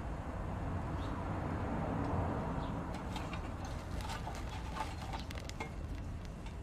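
Twigs burning in a small folding metal wood stove, crackling with sharp pops that come thickest in the second half, over a steady low rumble.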